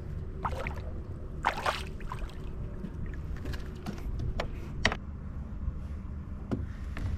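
Steady low wind rumble on the microphone, broken by a few short noisy bursts of splashing and handling as a hooked bass is brought in at the side of a kayak. The loudest burst comes about one and a half seconds in.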